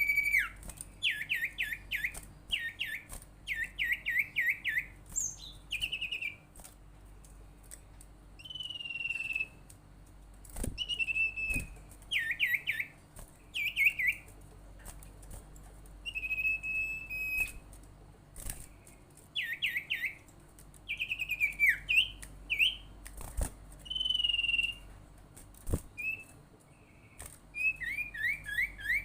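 Sirtu songbird calling in repeated phrases: quick trills of down-slurred notes alternating with single held whistles, with short pauses between phrases. A few faint sharp clicks are also heard.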